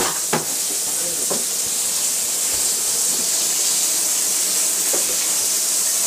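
Water running steadily from an open, disconnected plumbing pipe, a constant hiss, with a few faint knocks.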